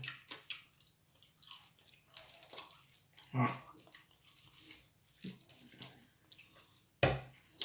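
Eating by hand: soft wet squelches and clicks of fingers mixing puttu and fish curry on a plate, with chewing and lip smacks. A short voice sound comes about three and a half seconds in, and a sharp tap near the end.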